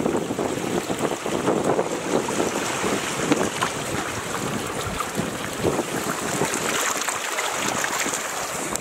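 Water rushing and splashing along a sailing canoe's hull as it moves through choppy sea, mixed with wind buffeting the microphone.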